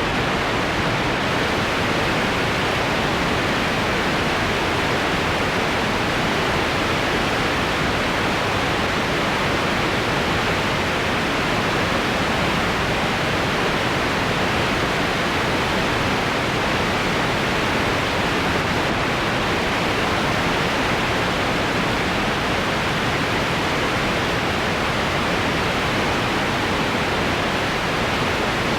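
White noise sound effect: a steady, even hiss that does not change.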